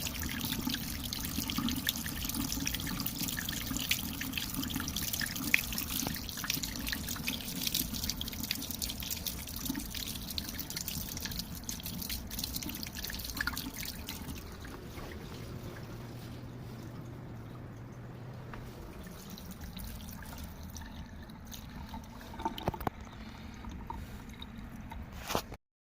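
Water dripping and trickling at a sink, busiest in the first half and thinning out after about fourteen seconds, with a few sharp knocks near the end.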